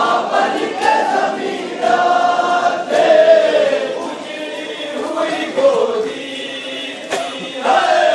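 A crowd of men chanting a mourning lament (noha) together in unison, in slow sung phrases that rise and fall.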